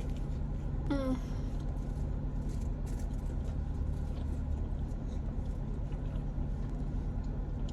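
Idling car engine and air-conditioning fan heard inside the cabin, a steady low hum. A short vocal sound falls in pitch about a second in.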